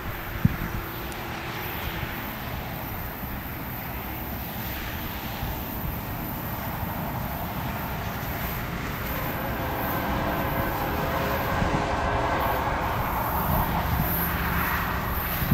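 Diesel freight locomotives approaching: a steady rumble that grows gradually louder, with faint steady tones coming in over the second half. A single sharp click about half a second in.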